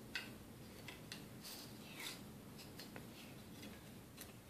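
Faint small taps and scrapes of a puzzle piece being handled and fitted into a children's puzzle board on a tiled floor, a scatter of light clicks.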